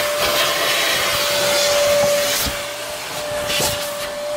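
Shop vacuum running steadily, a loud rushing hiss with a steady whine, with a few light knocks.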